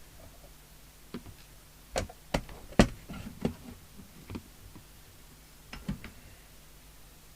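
A series of sharp, irregularly spaced clicks and knocks, the loudest about three seconds in: the case and parts of a Midland 2001 CB radio being handled as the set is taken apart.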